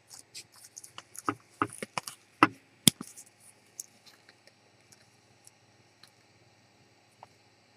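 A quick run of small sharp clicks and knocks, the two loudest about two and a half and three seconds in, then a few faint ticks: small metal parts being handled, as when working the action of a miniature 2mm pinfire rifle.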